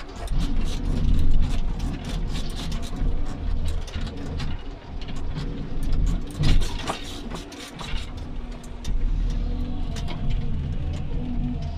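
Komatsu 931.1 harvester heard from inside its cab: the engine and hydraulics pick up under load at the start and drone on steadily. Frequent short clicks and knocks come from the harvester head as it grips and feeds a log.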